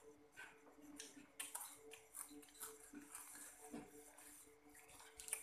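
Quiet eating at a table: faint chewing and scattered small clicks of spoons and plates, over a faint steady hum.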